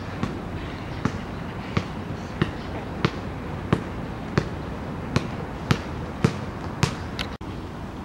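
A regular series of sharp knocks, about three every two seconds, over steady background noise; the knocks stop about seven seconds in.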